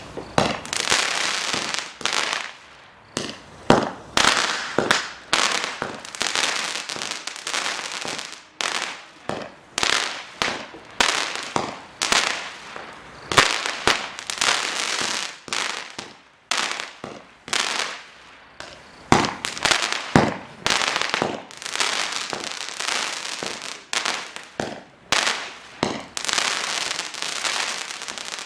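A 96-shot, 200-gram consumer fireworks cake firing shot after shot, about one to two sharp bangs a second, with crackling between them.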